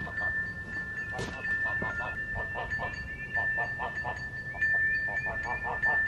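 Outdoor ambience of animal calls: a continuous high tone, with rapid rhythmic pulsed calls several times a second and a few short rising chirps. A single sharp knock comes about a second in.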